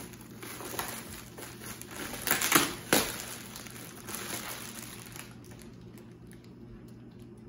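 Packing material being pulled off and crumpled by hand, a continuous crinkling with a few loud sharp crackles a couple of seconds in, growing quieter near the end.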